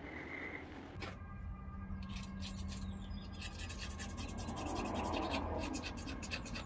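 A flat blade scraping back and forth across a metal engine surface in quick repeated strokes, cleaning off old deposits. A steady low hum runs underneath.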